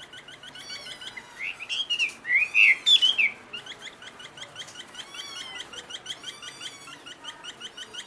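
Chinese hwamei (Garrulax canorus) singing: a run of loud, clear whistled notes rising and falling in pitch from about one and a half to three and a half seconds in, over a steady stream of quick, high chirping notes.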